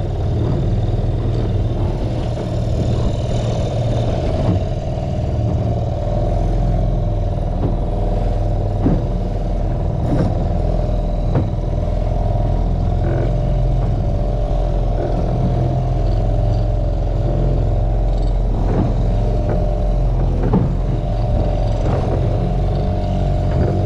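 Outboard motor of a small open fishing boat running steadily at slow trolling speed, with a few faint knocks now and then.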